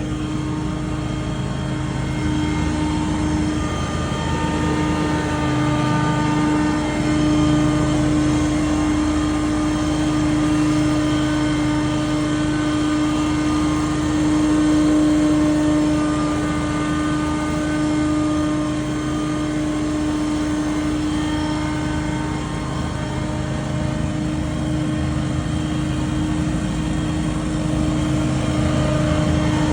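Scag Windstorm stand-on debris blower running steadily: a loud engine-and-fan drone with one strong steady hum, the level swelling and easing slightly now and then.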